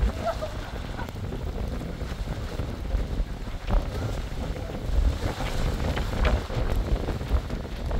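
Wind buffeting the microphone: an uneven low rumble that swells and drops in gusts, with a few light knocks scattered through it.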